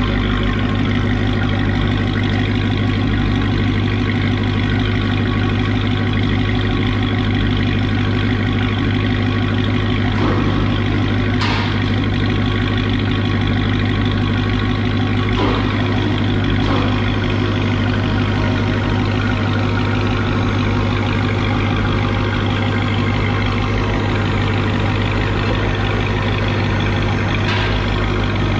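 Supercharged 6.2-litre Hemi V8 of a Dodge Charger Hellcat idling steadily through a freshly installed Corsa Extreme cat-back exhaust, free of exhaust leaks. A few faint clicks sound over it.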